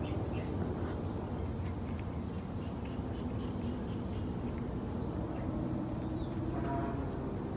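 Cats eating dry kibble from a foam tray, with faint crunching and small clicks over a steady low background rumble. A brief faint cry comes near the end.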